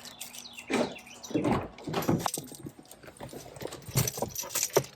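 A dog making a series of short vocal sounds, about seven separate calls in bursts.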